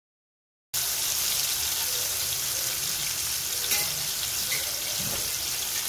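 Marinated chicken pieces sizzling as they fry in hot oil in a pan: a steady hiss with a few faint crackles, starting suddenly about a second in.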